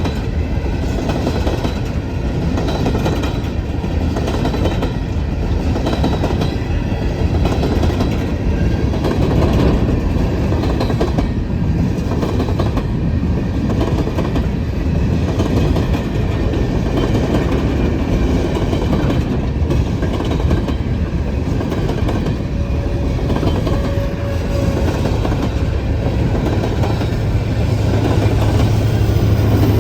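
Freight train cars, empty coal hoppers of a unit coal train, rolling past steadily with a continuous rumble and wheels clacking over the rail joints.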